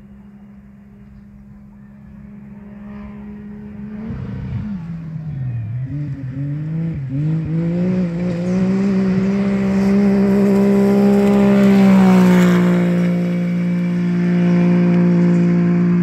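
Off-road rally buggy's engine racing toward the microphone, faint at first, then its pitch dipping and climbing several times as the driver lifts off and accelerates through the gears. It then holds a steady high pitch at full throttle, loudest about twelve seconds in as it passes, when the pitch drops a step, and stays loud as it runs on.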